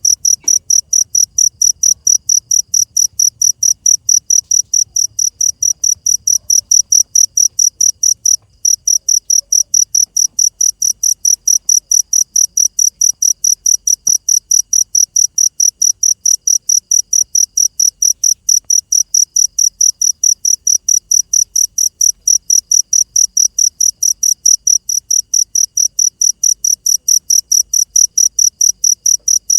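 A cricket chirping in a fast, even rhythm of short high-pitched pulses, pausing briefly about eight seconds in.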